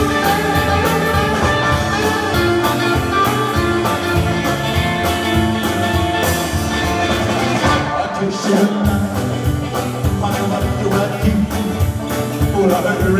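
Live rock-and-roll band playing, with electric guitars over a steady drum beat; the bass and drums drop out briefly a little past halfway, then come back in.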